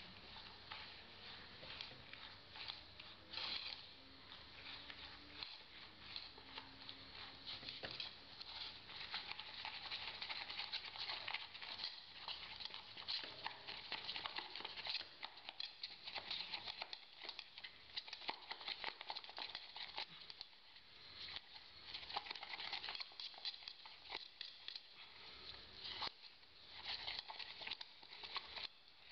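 Hand stirring and scraping of a thick geopolymer binder and mica filler paste with a small spatula in a plastic pot. It comes as a faint, continuous run of small scrapes and clicks.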